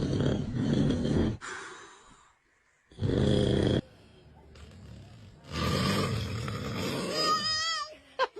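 A man snoring loudly: one snore at the start and another about three seconds in. Later comes a longer noisy stretch that turns into a high, wavering cry near the end.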